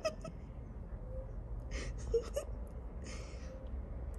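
Black British Shorthair kitten, about six weeks old, giving a few short mews.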